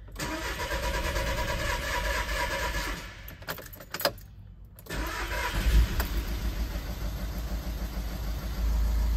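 A steady hum and a few sharp clicks, then the 1.6 TDI four-cylinder diesel engine cranks briefly and fires about five seconds in, settling into an idle. It is the first start after an injector replacement with the fuel lines opened, and it catches almost straight away, which is a sign that the fuel system has primed without trouble.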